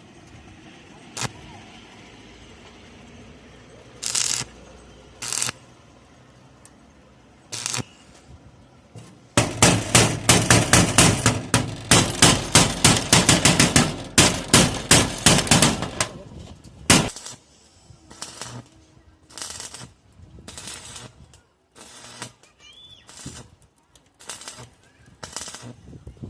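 Hammer striking metal: a few single knocks, then from about nine seconds in a fast run of sharp blows, about six a second, for some eight seconds, then scattered knocks again.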